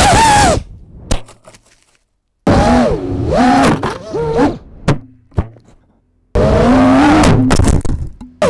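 FPV quadcopter's brushless motors and propellers whining close to the onboard camera, the pitch swooping up and down with the throttle, in three loud runs. Each of the first two runs dies away quickly, with sharp knocks and snaps of crash impacts in the gaps.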